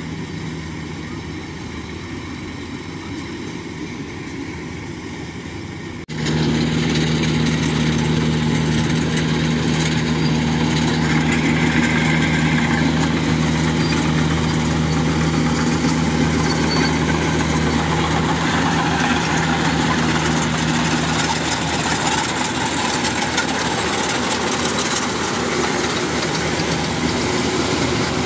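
Kubota DC-105X crawler combine harvester's diesel engine running steadily at harvesting speed, a loud, even hum with a low held drone. For the first few seconds the engine sounds quieter, then the sound suddenly steps up louder about six seconds in.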